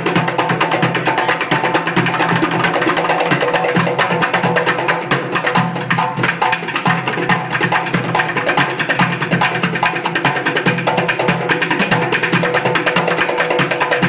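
Bucket drumming: two players beat plastic buckets with drumsticks in a fast, dense, steady rhythm, joined by a djembe played by hand.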